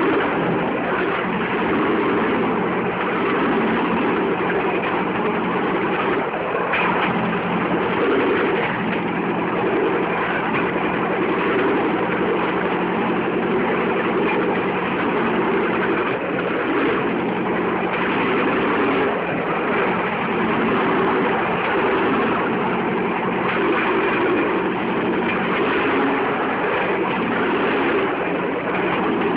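Bamboo train (norry) under way: its small engine runs steadily while the bamboo platform rattles along the rails, with an occasional knock from the wheels over the track.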